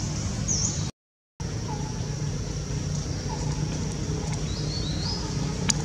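Outdoor ambience: a steady low hum with a few short, high bird chirps, broken by a half-second dropout to silence about a second in and a sharp click near the end.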